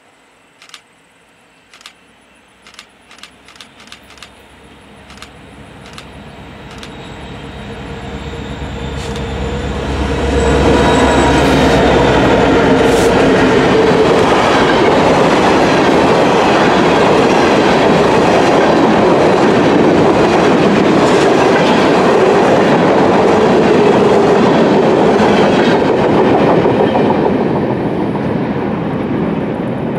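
A freight train passing close by. A run of sharp clicks comes first, then the diesel locomotives' rumble builds to a peak about ten seconds in. After that the covered hopper cars' wheels roll and clatter steadily on the rails, easing off near the end.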